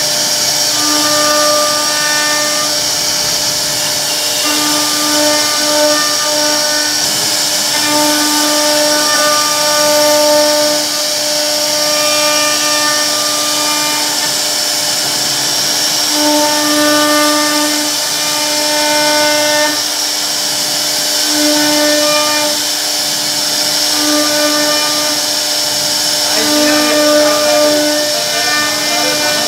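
CNC router spindle running with its bit carving into a wooden door panel: a steady high whine, with a lower, constant-pitched tone that cuts in and out every one to three seconds as the machine works.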